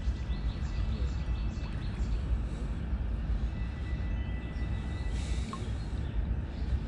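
Wind buffeting the microphone, with light water splashing around a sea bass held in the shallows and a brief splash about five seconds in.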